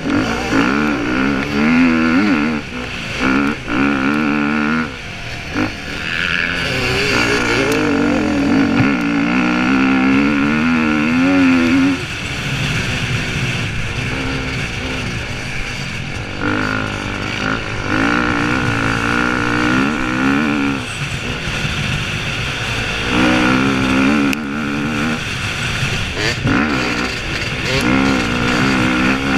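Motocross bike engine heard from on board, revving up and easing off again and again as the rider works the throttle and gears over the track.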